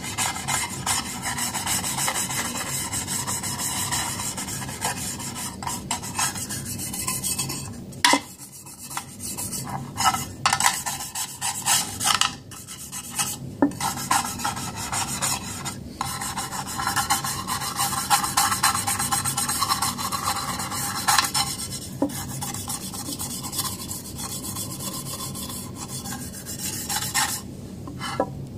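Toothbrush bristles scrubbing the aluminium body of a GI rifle magazine wet with acetone, to lift old adhesive residue. The scrubbing is brisk and continuous, with a couple of brief pauses and a sharp knock about eight seconds in, and it stops shortly before the end.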